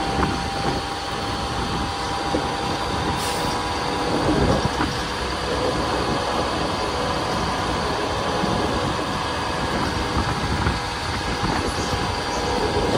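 Mumbai suburban local train running: a steady rumble of wheels on the rails with a faint steady whine over it.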